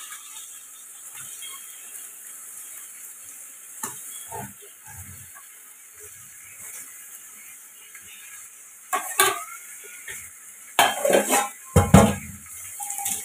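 Chicken and onions sizzling as they fry in a pan, stirred with a metal spatula (khunti) that scrapes and knocks against the pan, with louder clanks near the end.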